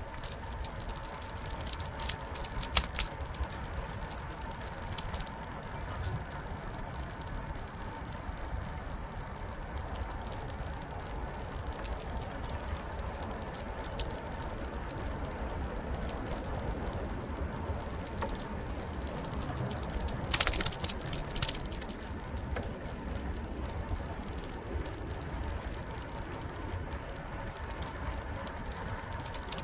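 Bicycle ridden along a paved path, heard from a handlebar-mounted camera: steady rolling and riding noise with a faint steady tone, and a few sharp clicks, the loudest about twenty seconds in.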